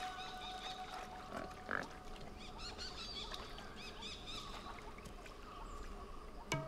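Wild boar grunting, with small birds chirping throughout.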